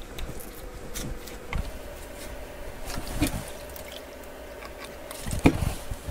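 Small clicks and taps from handling a Samsung Galaxy S22 Ultra and a plastic opening pick while its back cover is being pried open, over a faint steady hum. The sharpest knock comes about five and a half seconds in.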